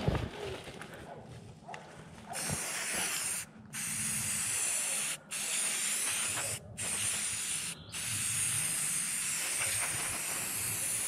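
Aerosol can of spray paint hissing as a tree trunk is sprayed, starting about two seconds in and coming as long sprays with four brief breaks.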